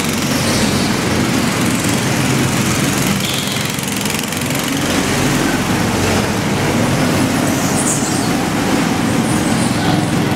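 Go-kart engines running steadily as karts lap the track: a continuous, even small-engine noise.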